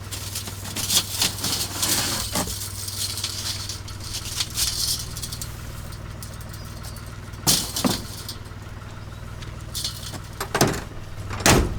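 An engine running steadily, with rattling in the first seconds and three loud metallic knocks later on.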